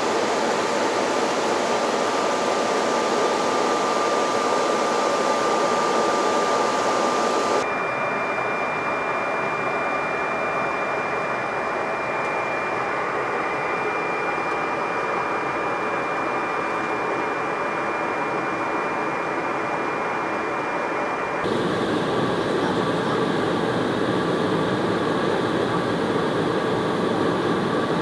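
Steady in-flight cabin noise of an Embraer E190 airliner: a constant rush of air and engine noise with a faint steady tone through it. The sound changes abruptly twice, about 8 and 21 seconds in; the middle stretch is duller, with a higher steady tone.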